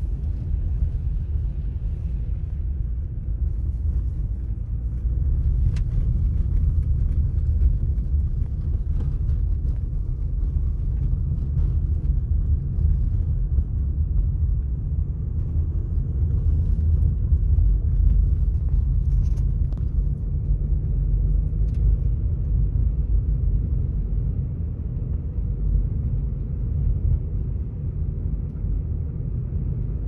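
Car interior road noise while driving over a rough, unpaved gravel road: a steady low rumble of tyres and suspension, with a few faint ticks scattered through it.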